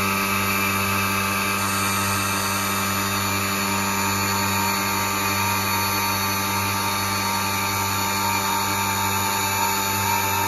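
Schneeberger Centromat grinding machine running, a steady machine hum with several held tones and no change in pitch or level.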